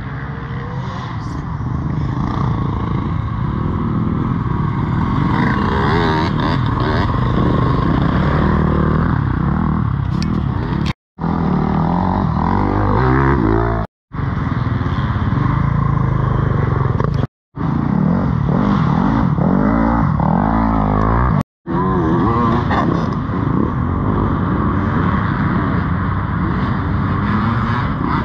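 Dirt bike engines running hard, the revs rising and falling. The sound breaks off in several short, sudden gaps.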